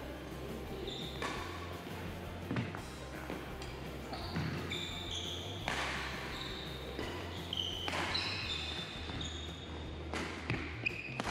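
Badminton being played in a large hall: sports shoes squeaking on the wooden court floor in many short, high squeaks, with several sharp racket hits on the shuttlecock echoing off the walls, over a steady low hum.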